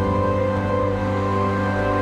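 Background music of sustained, slowly changing held notes.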